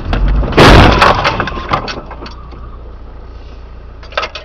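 Car collision: a loud impact about half a second in, followed by cracking and crunching for about a second and a half, with a few more sharp cracks near the end over steady road rumble.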